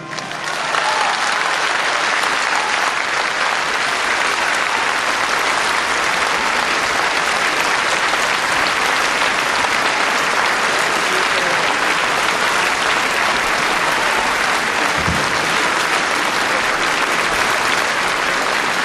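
A full theatre audience applauding; the clapping swells up within the first second and then holds steady.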